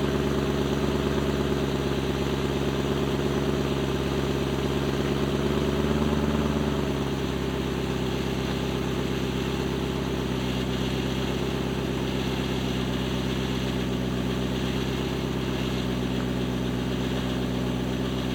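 BMW E90 M3's S65 V8 engine idling. About seven seconds in the idle drops to a lower, steady speed.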